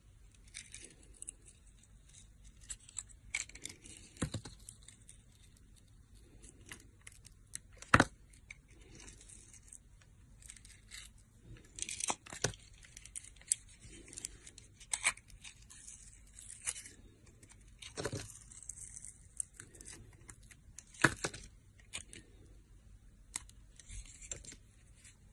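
Knife blade cutting and slicing into a glitter-coated bar of soap, giving an irregular crisp crackling as thin curls and chunks peel away. Now and then there is a sharp click; the loudest comes about eight seconds in.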